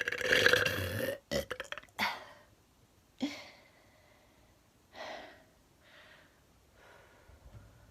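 A woman's long, loud burp with a fast rattle in it, ending about a second in. Several shorter, quieter sounds follow over the next few seconds.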